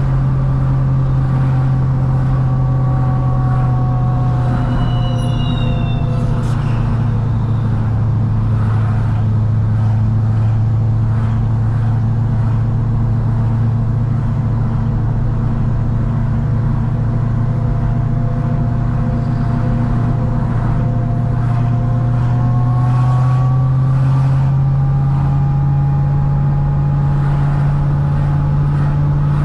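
Supercharged 6.2-litre LS9 V8 of a C6 Corvette ZR1, built to about 1000 hp, running steadily at low revs under light throttle while cruising. The engine note sags slowly, then climbs again from about twenty seconds in.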